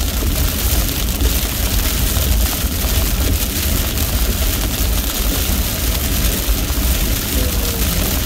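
Steady low rumble of a car's road and engine noise heard inside the cabin while driving in heavy rain, with an even hiss of rain and wet tyres over it.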